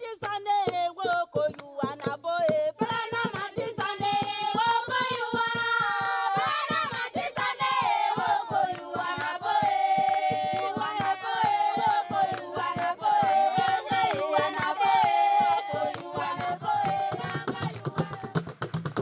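Baka women singing yeli, a yodeled polyphony of several a cappella voices interlocking, over a steady beat of hand claps.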